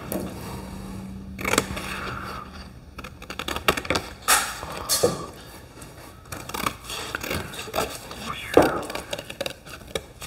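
Scissors cutting a green paper pattern: a run of irregular snips and scrapes of the blades through the paper.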